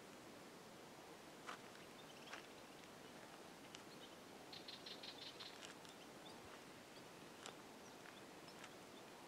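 Near silence: faint outdoor ambience with a few scattered soft clicks and a brief rapid high chatter about halfway through.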